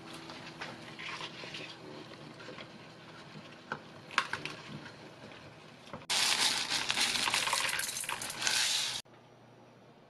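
Ingredients being handled and set into a stainless steel pot of pork backbone, with light knocks and clicks. About six seconds in, a loud, even hissing noise starts suddenly, runs for about three seconds and cuts off sharply.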